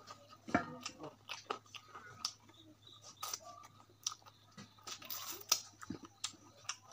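Close-up chewing of meat and rice, with irregular sharp clicks from the mouth.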